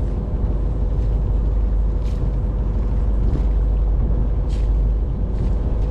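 A vessel's engine running steadily under way, a deep rumble with a steady hum over it. Water hisses and splashes against the hull a few times.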